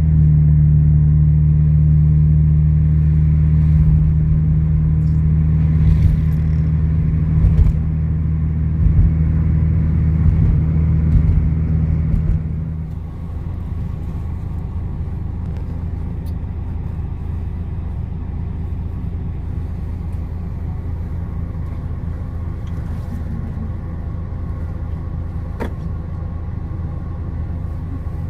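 A vehicle's steady running drone with a strong low hum. About twelve seconds in the hum's strongest tone stops and the sound settles into a quieter, even drone, with a single sharp click late on.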